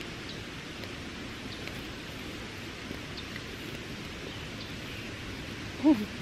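Small wood campfire crackling with sparse light pops over a steady hiss. Near the end there is one short, loud voiced grunt or call.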